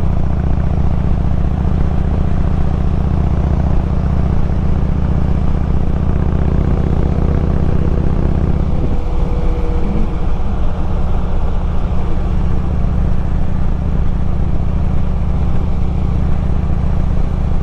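Harley-Davidson Road King's V-twin engine running steadily at cruising speed, with wind rushing past. The engine note shifts briefly about nine seconds in, then settles again.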